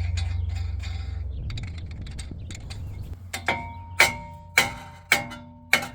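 A hammer striking metal about five times, roughly half a second apart, each blow ringing briefly, starting about halfway through. Before that, a low steady hum fades away.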